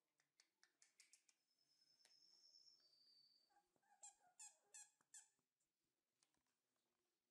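Four-week-old puppies squeaking: four short, high yelps in quick succession about four seconds in, after a faint thin whine. Faint light clicks of the puppies moving come before them.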